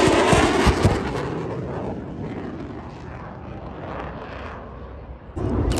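Lockheed Martin F-35A Lightning II's single afterburning turbofan after a high-speed, near-transonic pass. The jet noise starts loud and falls away over about five seconds as the fighter flies off. Near the end, the sound jumps abruptly louder again.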